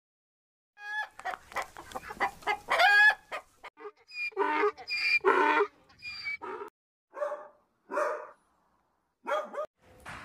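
Hen calls: a quick run of short rising clucks, then longer, harsher cackling calls about every half second, with a last pair near the end.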